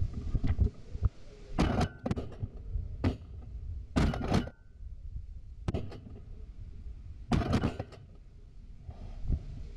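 Shotguns firing at a flock of geese: about half a dozen sharp shots spread over several seconds, some in quick pairs.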